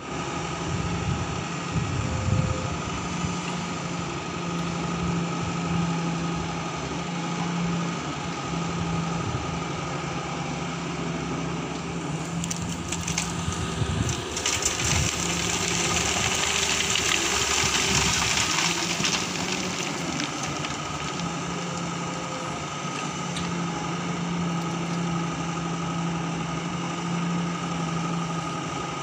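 Doosan 140 wheeled excavator's diesel engine running steadily under digging work, with stones scraping and knocking in the bucket. Around the middle, a rattling hiss lasting several seconds as gravel is tipped from the bucket and slides down a steel mesh screen.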